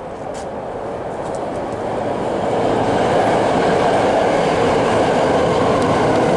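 BART train passing on the elevated track overhead: its rail noise grows louder over the first few seconds, then holds steady, with a faint steady tone running over it.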